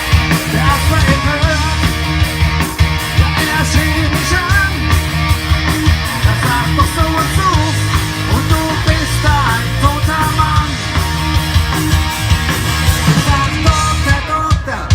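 Live band playing loud, fast rock music with a driving drum beat and heavy bass, with singing in the middle stretch.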